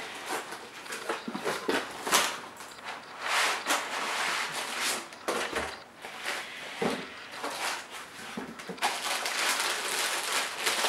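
Packaging being handled: uneven rustling and crinkling, with a few sharp knocks, strongest about a third of the way in and again near the end.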